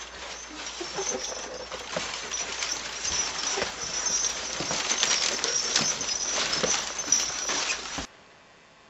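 Footsteps and rustling close to a camcorder's microphone, irregular knocks over a steady hiss; the sound cuts off suddenly about a second before the end.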